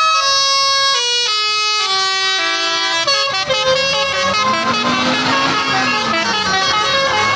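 Basuri telolet horn on a tour bus playing a melody: a run of loud air-horn notes, each changing pitch after about a third of a second. About three seconds in, the sound turns into a denser jumble of overlapping horn tones.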